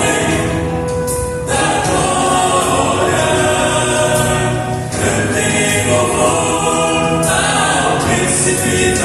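A vocal quartet singing a gospel hymn in harmony, with long held notes and new phrases starting about a second and a half, five and seven seconds in.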